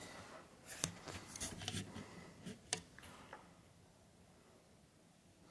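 A scatter of light clicks and short scuffs over the first few seconds, then only faint room tone.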